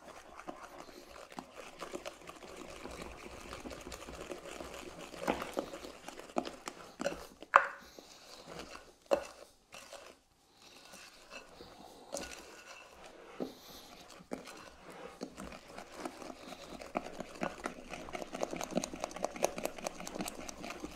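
Wooden spoon beating a wet egg, butter and sugar batter by hand in a ceramic mixing bowl: a continuous squelching stir with a few louder knocks of the spoon against the bowl in the middle, getting faster and denser near the end. The eggs are being beaten into the creamed butter and sugar.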